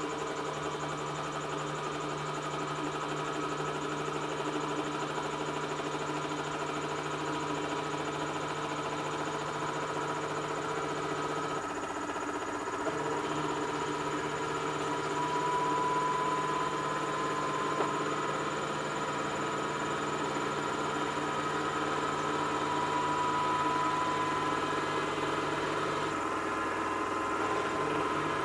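Samsung washing machine running, its motor humming steadily with a faint whine that slowly rises in pitch. The low hum cuts out briefly twice, about twelve seconds in and again near the end.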